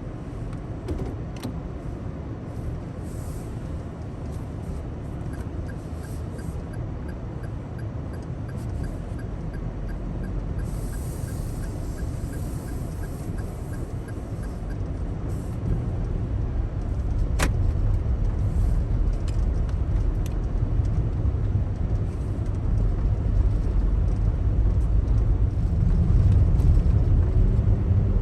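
Daihatsu Taft kei SUV driving on a snowy road: a steady low rumble of engine and tyres that grows louder over the second half, with scattered sharp ticks.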